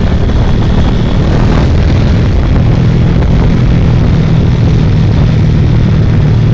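Motorcycle engine running steadily while riding, its low hum under heavy wind noise on the microphone.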